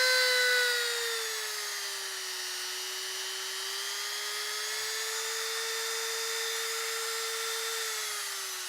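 Professional Woodworker rotary tool (a Dremel-type tool) running unloaded at its top speed setting with a steady high whine. The pitch sags about a second in, creeps back up, then drops again near the end.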